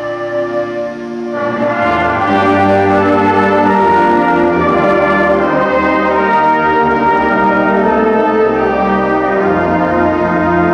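A junior high school concert band playing, with the brass to the fore. The music is softer for the first second and a half, then the full band comes in louder and holds sustained chords.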